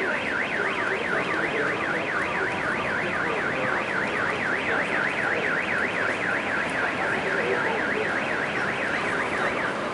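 Car alarm siren warbling rapidly up and down, about four sweeps a second, over a steady noisy background; it stops shortly before the end.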